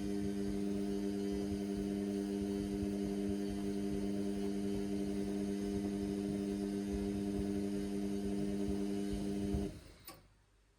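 Indesit washing machine's drain pump humming steadily as it pumps out a suds-overloaded wash. Near the end it cuts out with a click, leaving near silence.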